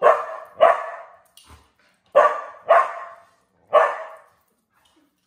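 A dog barking: five loud, sharp barks, in two quick pairs and then a single.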